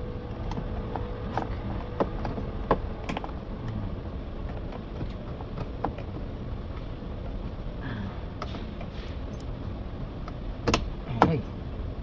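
Screwdriver working at the plastic door handle trim of a 2011 Audi A5 door panel: scattered small clicks and plastic creaks, with two louder knocks about a second apart near the end, over a low steady hum.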